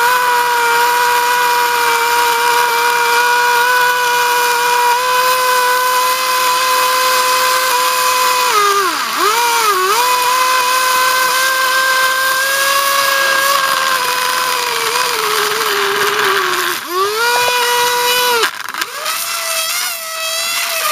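Small electric motor of an RC model car whining steadily at full speed as it spins a rear wheel against asphalt in a burnout, while the overheating motor burns out and the car catches fire. The pitch dips twice about nine seconds in, sags and cuts out briefly twice near the end, then comes back at a higher pitch.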